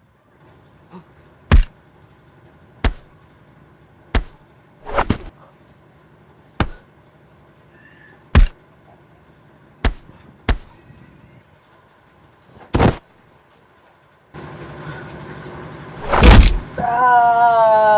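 A series of sharp impact sound effects, about ten single hits spaced a second or two apart. Near the end a hiss comes in under the loudest hit, followed by a falling, whistle-like tone.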